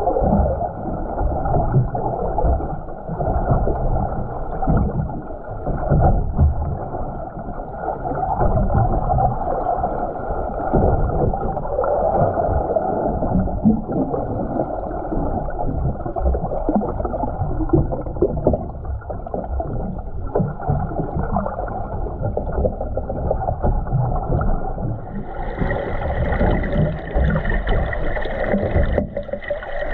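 Muffled underwater water noise picked up by a camera held just under the sea surface: a fluctuating low sloshing and rumbling with no clear events. About 25 seconds in, a steady high whine with several pitches joins and carries on.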